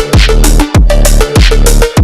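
Background electronic music with a heavy, fast beat and deep bass.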